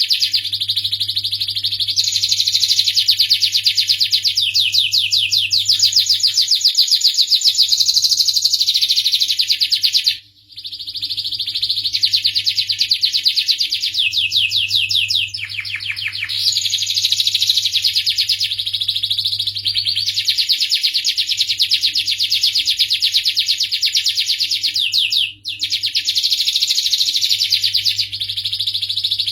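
Domestic canary singing a long, near-continuous song of rapid trills and rolls, pausing briefly twice.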